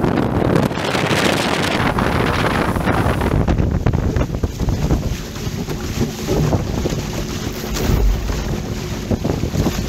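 Wind buffeting the microphone over the rush and splash of water along a Weta trimaran's hull and floats as it sails at speed, with a louder spell of hissing spray about a second in.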